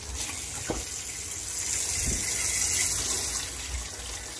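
Kitchen tap running steadily into a stainless steel sink, the stream splashing over hands as green chillies are rinsed under it.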